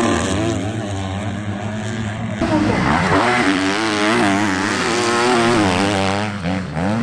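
Several 250cc four-stroke motocross bikes racing past, their engines revving up and down hard as the riders accelerate and jump. The mix of engines changes abruptly about two and a half seconds in.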